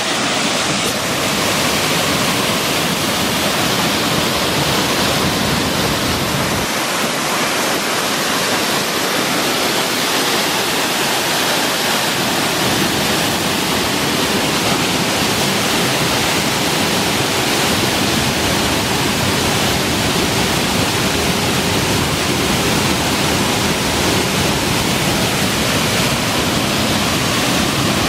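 Waterfall plunging into a shallow pool: a steady, unbroken rush of falling and splashing water.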